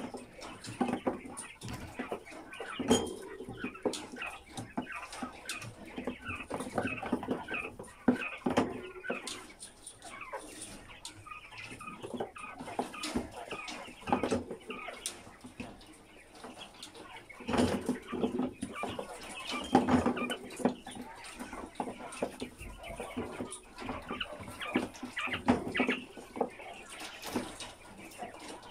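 A crowded wire cage of white giant quail chattering and cheeping, in several louder flurries, with scattered sharp clicks throughout.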